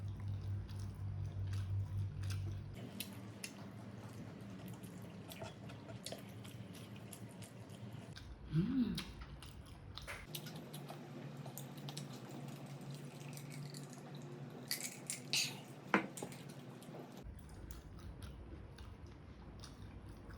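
Close-miked eating sounds: chewing with soft wet mouth clicks and smacks, scattered through, with a few louder clicks near the end and a short pitched sound partway through.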